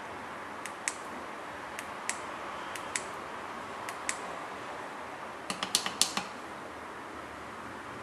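Small sharp clicks of the buttons on a handheld key-fob remote being pressed, mostly in pairs a fraction of a second apart, switching a wireless remote-controlled lamp holder on and off. About five and a half seconds in comes a quicker run of about seven louder clicks. A steady low hiss runs underneath.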